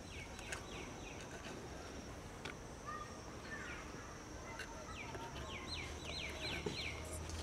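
Birds calling: one bird repeats quick downward-sweeping notes in short series, about six a second, while other birds give scattered calls. A few light clicks come in between.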